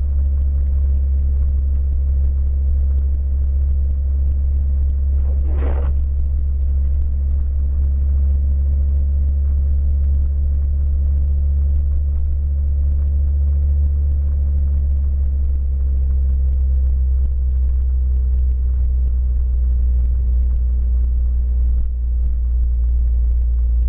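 Steady low drone of an Audi's engine and road noise heard from inside the cabin while driving at an even speed on a snow-covered road. One brief higher sound comes about six seconds in.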